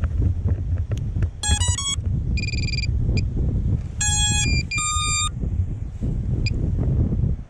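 Strong wind buffeting the microphone with a low, gusty rumble. In the middle, four short runs of electronic beeps step up and down in pitch.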